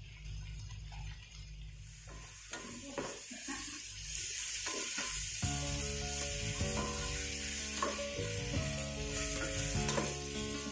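Onions, tomatoes, ginger, garlic and whole spices sizzling in oil in a pot, stirred with a wooden spatula in scraping strokes. Background music comes in about halfway.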